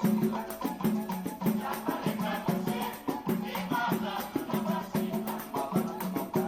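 Pagode samba music: a voice singing over a steady percussion groove, with the rattling jingles of a pandeiro and a repeating bass line.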